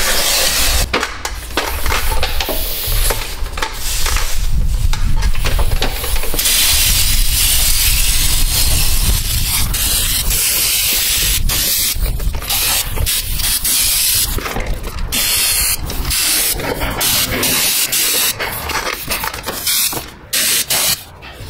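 Hose-fed undercoating spray gun fogging Fluid Film rust-proofing oil into the engine bay. It hisses loudly in long bursts, broken by short stops where the trigger is let go and squeezed again.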